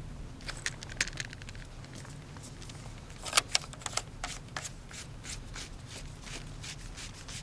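Irregular small clicks and ticks of a spinning reel and rod being handled, with a louder cluster of clicks about three and a half seconds in.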